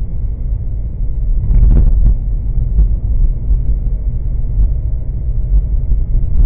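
Car driving, a steady low rumble of road and engine noise heard inside the cabin, with a few brief knocks about a second and a half to three seconds in.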